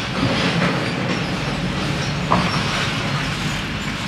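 Steady rumbling background noise, with one light metal click a little past halfway as a T-handle box spanner turns a bolt on the scooter's timing chain tensioner.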